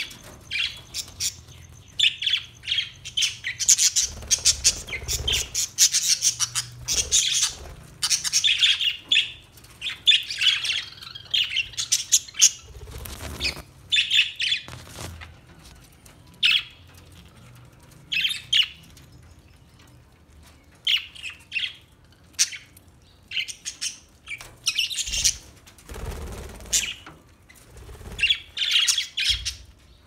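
A flock of budgerigars chattering: bursts of rapid high chirps and warbles from many birds at once, broken by brief lulls.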